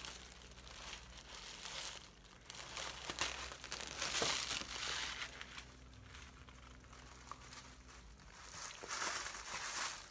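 Rustling and crinkling of a curly drawstring half wig being handled close to the microphone, in several bursts, loudest about four seconds in and near the end as the hair brushes across the phone.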